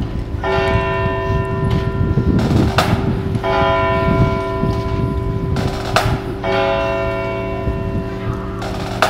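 A church bell tolling slowly, struck about every three seconds, each stroke ringing on with a steady hum under it, as a funeral toll.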